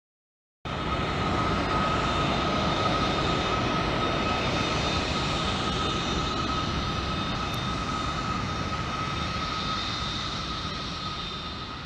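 Airbus A350-900's Rolls-Royce Trent XWB jet engines running steadily, a high fan whine over a broad rush, cutting in suddenly just under a second in and slowly fading toward the end.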